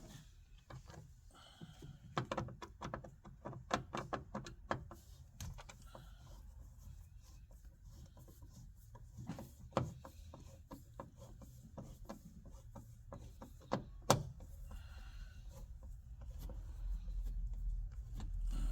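Phillips screwdriver working screws out of a 1994 Geo Metro's plastic door trim: a run of small irregular clicks and scrapes, then two sharper knocks. A low rubbing sound builds near the end as the parts are handled.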